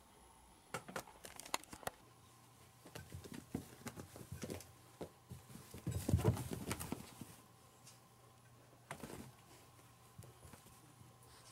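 A cat scratching and pawing at a fabric mat on a wooden floor: irregular scrapes, rustles and light taps, with a longer scuffle about six seconds in.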